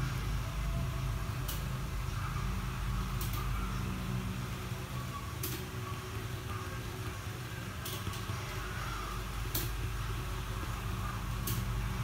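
Steady low room hum, with a short sharp click every two seconds or so.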